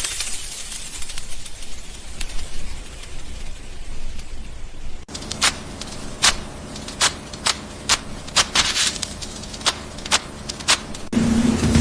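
Cloth rustling and rubbing as laundry is handled and folded, fading away over the first few seconds. After a cut, a run of about a dozen sharp, irregularly spaced clicks or taps.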